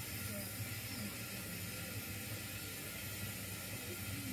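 0 gauge model goods wagons rolling along the track in a steady low rumble, under an even hiss.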